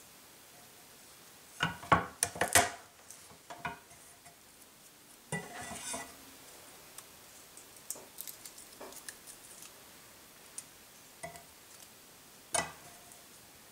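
Steel Chinese cleaver knocking and clattering against a wooden cutting board: a quick cluster of sharp knocks about two seconds in, a few lighter ones after, and one more sharp knock near the end. Between them come small clicks and a brief dry scratching as a garlic clove is peeled by hand.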